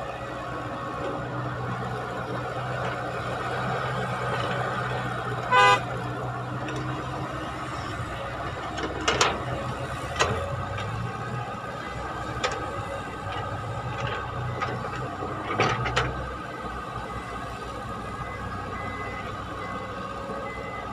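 Caterpillar tracked excavator's diesel engine running steadily as it digs and loads earth, with a few sharp clanks from the bucket and boom. A horn toots once, short and loud, about five and a half seconds in, and a faint repeating beep starts near the end.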